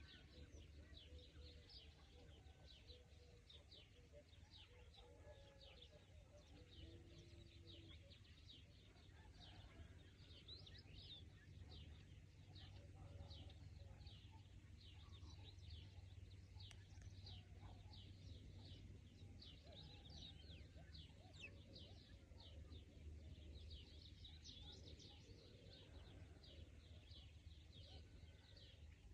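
Faint chorus of small birds chirping, with many short, high chirps in quick succession throughout over a steady low hum.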